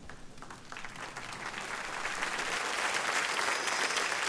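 Large audience applauding, the clapping swelling over the first couple of seconds and then holding steady.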